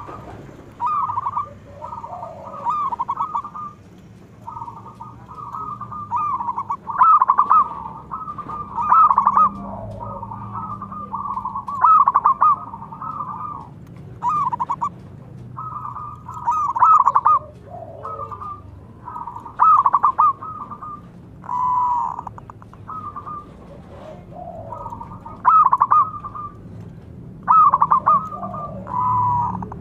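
Zebra doves (perkutut) cooing and answering one another: rapid stuttering, trilled coo phrases repeated every second or two, some much louder than others.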